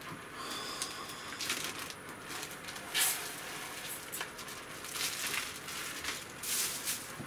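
Uncooked rice poured from a plastic zipper bag into a stainless steel bowl, with the bag rustling: several short rattling bursts, the loudest about three seconds in.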